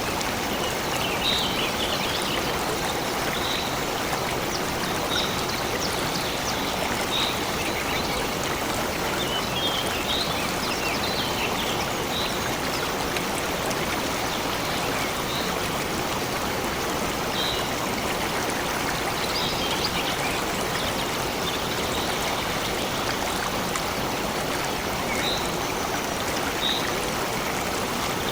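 A stream running steadily, with short high bird chirps now and then over it.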